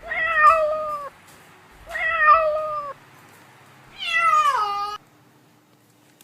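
A kitten meowing three times, each meow about a second long; the third glides down in pitch.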